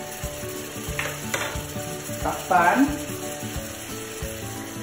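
Skin-on chicken breast and wing pieces sizzling in a pot over sautéed garlic and onion, searing in the first stage of browning, with background music playing over it. A couple of light clicks about a second in.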